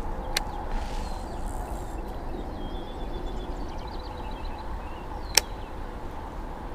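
Baitcasting reel clicking as it is worked for a pitch: one sharp click just after the start and a louder one about five seconds later, over a steady outdoor background with a few faint bird chirps.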